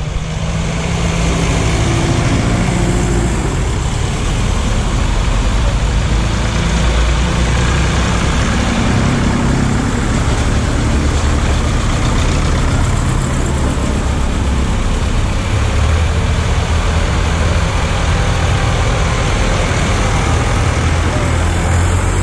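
Vintage tractor engines running steadily as a grey Ferguson and red Massey Ferguson tractors drive one after another through a shallow ford, with water splashing and rushing around their wheels.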